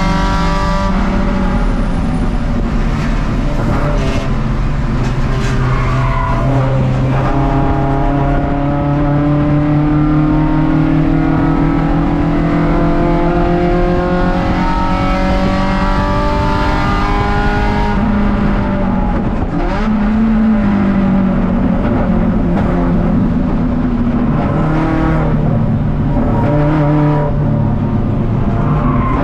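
Four-cylinder race car engine, a Toyota 4A-GE, heard from inside a stripped, caged cabin running hard down a straight, its pitch climbing slowly. About two-thirds of the way through the pitch drops as the car slows for a corner, with steady road and wind noise throughout.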